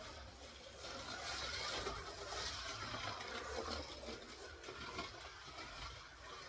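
A Scalextric Holden VL Commodore slot car, magnet removed, lapping a plastic track: the small electric motor whirs and the car runs over the rails. The sound swells from about a second in and eases off after about four seconds, as the car passes closer and away.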